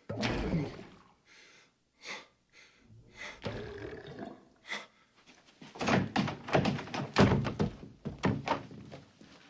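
A loud gurgling gut rumble at the start as the laxative takes hold, then a quick run of thuds and knocks in the second half.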